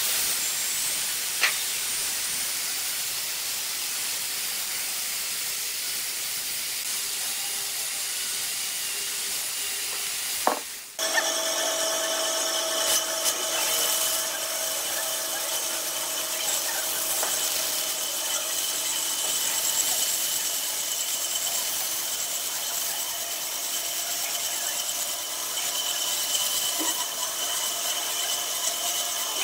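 Corded electric chainsaw running and cutting into a log. About ten seconds in the sound breaks off and a band saw takes over, running with a steady whine as a log section is fed through the blade.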